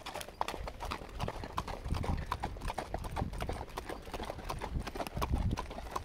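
Horse hooves clip-clopping on a hard dirt trail under a rider, an irregular run of sharp clicks. Two low rumbles come about two seconds in and again near the end.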